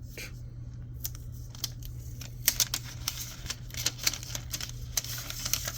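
A new phone and its packaging being handled and unwrapped: a run of small clicks and taps, with plastic rustling that grows in the second half, over a steady low hum.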